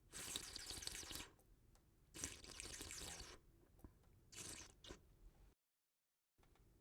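A person slurping liquid through the lips in a series of separate slurps: two long ones about a second each, then a shorter one and a brief final sip.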